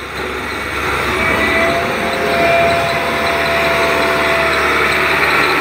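Diesel tractor pulling a water tanker, its engine running steadily as it drives slowly over loose gravel toward the listener. A steady whine joins about a second in and fades near the end.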